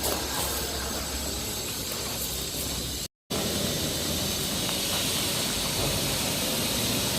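Steady hissing background noise, broken by a short complete dropout a little after three seconds in.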